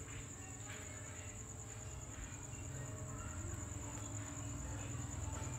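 Crickets trilling steadily on one high note, with a low rumble underneath.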